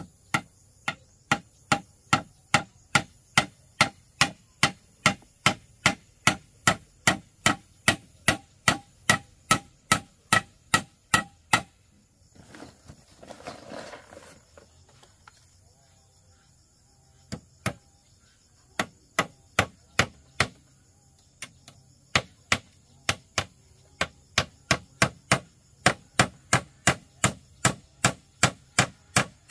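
Rapid, regular blows of a hand tool on wood, a little over two a second, in two long runs. Between them, about halfway through, are a short scraping rustle and a few scattered strikes.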